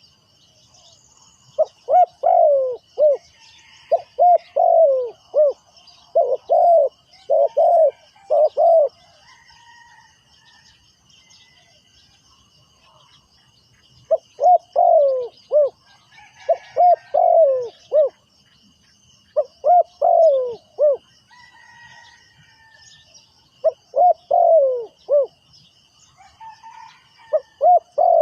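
Spotted dove cooing in repeated phrases of several quick coos, the decoy's call meant to lure wild doves. It calls in two bouts, a few seconds in and again about halfway through, with a pause of several seconds between. Faint, steady high-pitched chirping of insects or small birds runs underneath.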